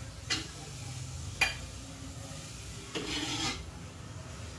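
Metal ladle scraping against the steel wok while scooping sauce out into a bowl: three scrapes, a short one at the start, a sharp one about a second and a half in, and a longer one around three seconds in.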